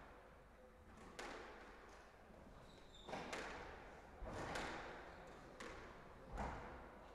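Squash rally: the ball smacked by rackets and hitting the court walls, about six sharp hits with echo, with a brief high squeak of a shoe on the wooden floor just before the middle.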